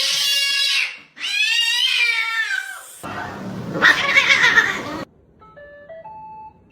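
A cat meowing in two long, drawn-out calls, followed by a rougher, noisier sound for about two seconds and then a few faint tones near the end.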